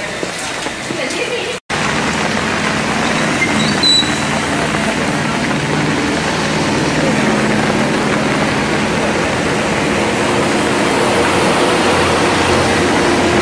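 Heavy rain falling onto shallow floodwater, a steady dense hiss. The sound cuts out for a moment about one and a half seconds in, then comes back a little louder.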